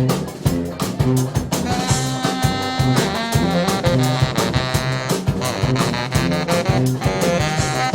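Brass band playing an up-tempo swing-style tune: horns holding and moving between notes over a steady drum beat.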